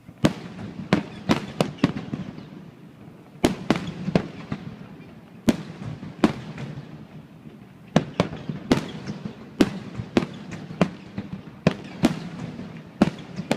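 Fireworks shells bursting overhead: a rapid series of sharp bangs, grouped in clusters a second or two apart, over a steady low rumble.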